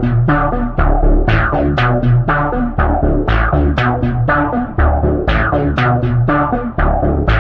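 Loud electronic dance music: a drum-machine beat with sharp, evenly spaced hits under layered synthesizer chords and bass.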